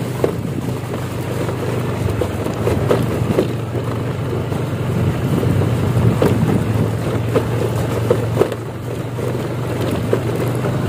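Motorcycle engine running steadily while riding over a rough, wet stone road, with irregular knocks and rattles from the bumps.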